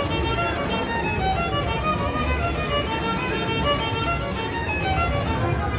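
A child playing a small violin, bowing a melody of short held notes that change pitch in steady succession.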